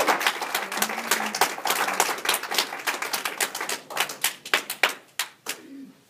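Small audience applauding by hand, the claps thinning out after about four seconds and dying away near the end.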